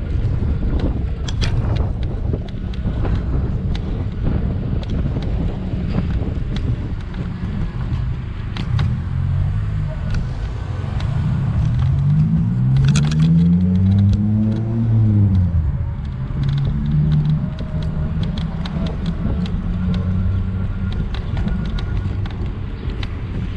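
Scooter rolling over rough city asphalt: a steady low rumble from the wheels, with frequent small clicks and rattles. In the middle, a motor sound rises in pitch over several seconds and then falls away.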